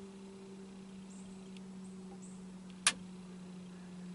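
A single sharp click about three seconds in, over a steady low hum.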